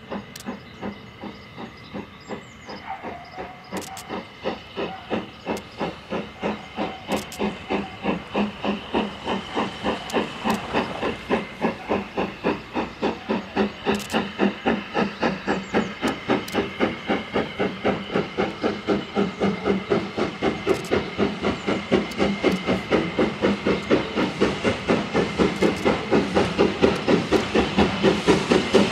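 Steam locomotive working a train towards the listener: a steady run of exhaust beats, about three to four a second, growing louder as it approaches.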